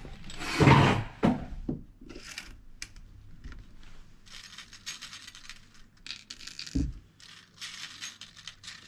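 Steel BBs rattling and clinking in short bursts as a BB gun magazine is loaded to full, after a louder bump of handling in the first second or two.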